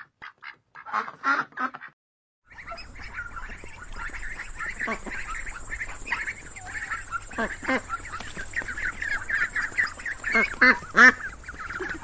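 A duck quacking in a few short calls. After a brief pause, a brood of ducklings peeping in a dense, continuous chatter of short high chirps, with a few lower calls mixed in.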